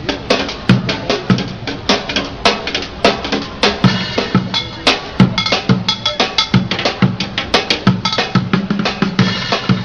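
A street drummer playing a fast, dense rhythm with drumsticks on upturned plastic buckets, a box and a metal plate. Rapid stick strikes run without a break, with heavier low hits among them.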